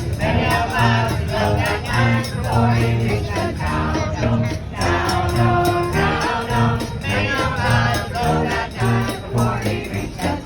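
Live band music: a melodic tune over pulsing low notes, with jingling percussion keeping a steady beat.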